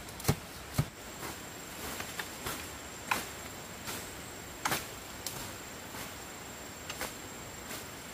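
A string of irregular light knocks and clicks, the two loudest close together about half a second in, over a steady hiss with a faint, thin, high steady tone.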